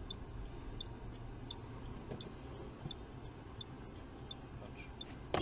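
Car turn-signal indicator ticking evenly, about once every 0.7 s, over the steady low rumble of the engine and road inside the car's cabin.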